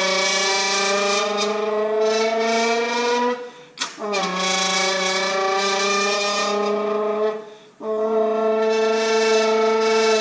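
A person imitating the sound of a Lamborghini V10 engine with their voice in three long held notes, each dipping in pitch at its start and then holding steady. There are short breaks between the notes, about three and a half and seven and a half seconds in.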